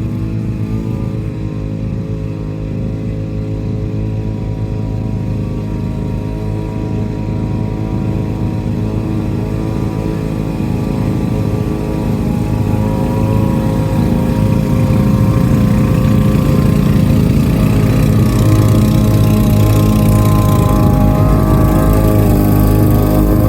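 Lawn mower engine running steadily at a constant speed, growing gradually louder.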